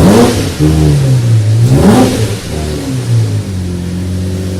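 Lamborghini Murciélago LP640's stock V12 engine revved twice in quick throttle blips, pitch sweeping up and falling back each time, then settling to a steady idle.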